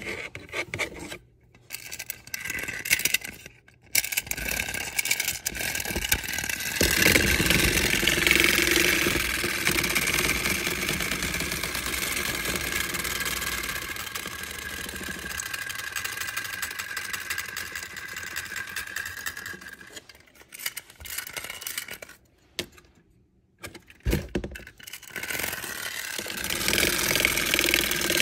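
Clockwork spring motor of a 1927 tin wind-up bird toy running with a steady whir, after a few seconds of stop-start sounds. It breaks off about two-thirds of the way through, gives a few short stop-start sounds, and runs again near the end.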